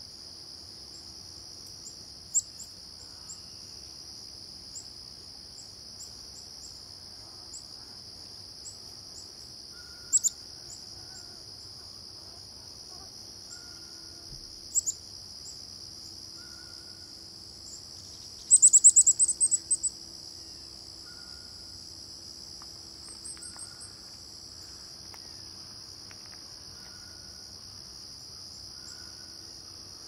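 Insects droning steadily at a high pitch, with scattered short, high bird chirps. A little past halfway comes the loudest sound: a quick run of high bird calls lasting a second or two.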